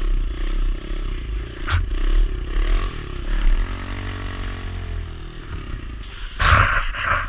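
Kawasaki KLX110 pit bike's small single-cylinder engine running at low speed as the bike rolls along, its pitch dipping and rising again about halfway through. Near the end comes a short, loud, noisy burst.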